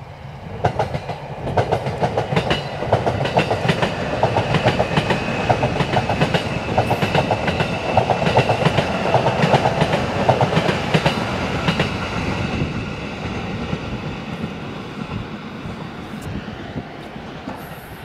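A train passing by. Its rumble and rapid wheel clicks build up within the first second or two, are loudest around the middle, and fade away over the last few seconds, with a faint steady whine above them.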